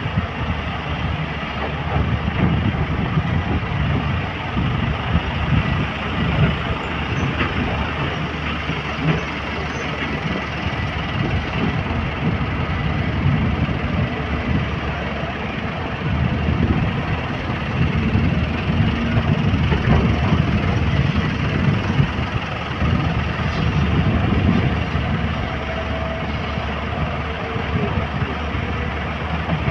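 Heavy diesel engines running steadily: a JCB excavator working as it digs and loads soil into a dump truck, with dump trucks idling close by.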